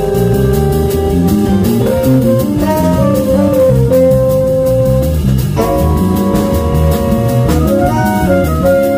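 Live jazz band playing: trumpet and saxophone holding long melody notes over electric bass and keyboard, with a steady beat. A new, fuller chord comes in about halfway through.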